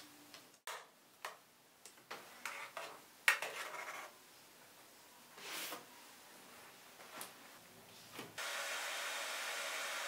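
Metal offset spatula scraping and smoothing ice cream in an aluminium baking tray, a series of short strokes. About eight seconds in, a hand-held hair dryer switches on and blows steadily.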